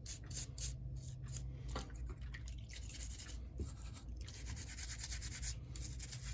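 Faint, rapid scrubbing of a toothbrush's bristles on a model locomotive's gearbox and electrical contacts, cleaning corrosion off the contacts. A steady low hum runs underneath.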